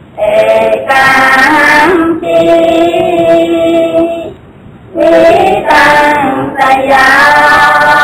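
A high voice singing a slow melody in long held notes, with a short break about halfway through.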